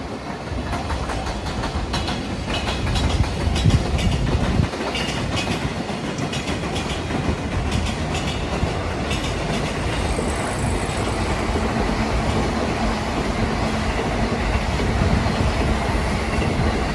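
Train passing close by over a level crossing, wheels clattering over the rail joints in a quick run of clicks over the first few seconds, then a steady rumble with a low hum from about ten seconds in.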